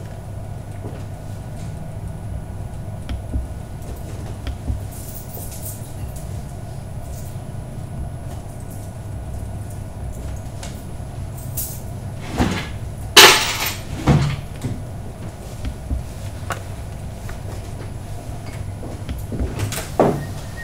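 Short knocks and clatters of things being handled behind a bar counter: bottles, glasses and cupboard doors. A cluster of louder clatters comes about twelve to fourteen seconds in, the loudest a sharp one about thirteen seconds in, with another knock near the end. A steady low rumble runs underneath.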